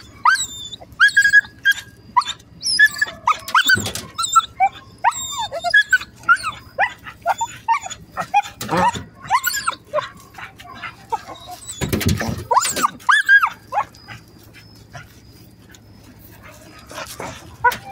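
A dog whining and yipping over and over in short rising-and-falling cries, with a few sharper barks about 4, 9 and 12 seconds in.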